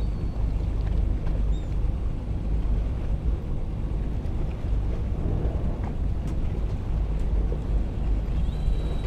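Steady low rumble aboard a fishing boat at sea: the boat's engine running and wind buffeting the microphone. A thin, steady high whine starts near the end.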